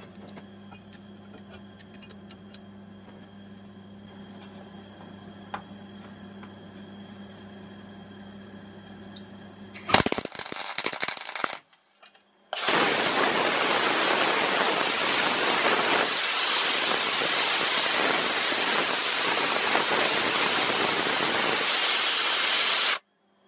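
Low steady hum, then about ten seconds in a short crackling weld tack of about a second and a half on a steel bearing flange. After a brief pause, a compressed-air gun blows a loud steady hiss for about ten seconds to cool the weld, cutting off sharply.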